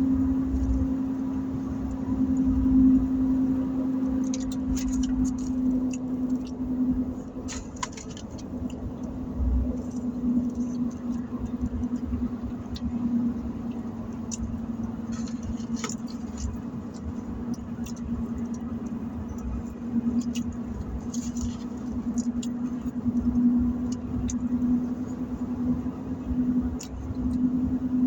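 Steady hum of a car heard from inside the cabin, with scattered short clicks and crinkles from eating.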